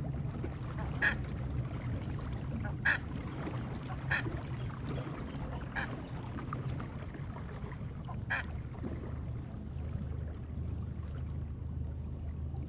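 Buff-necked ibis giving short honking calls, five of them spaced irregularly over about eight seconds, over a steady low engine hum.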